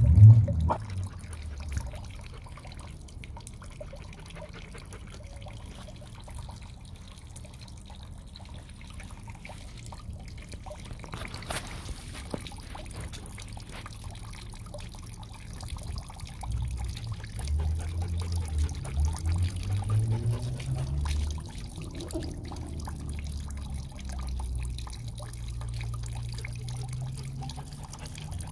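Water running steadily into a plastic water bowl, a gentle trickling pour. A knock comes right at the start, and a low rumble swells and fades through the second half.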